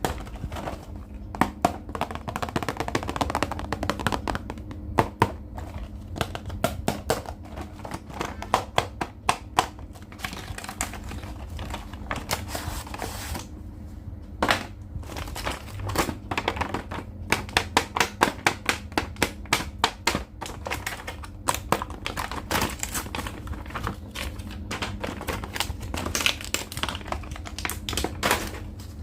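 Plastic action-figure packaging and toy parts being handled, giving many irregular sharp clicks and taps, some in quick runs, with some crinkling.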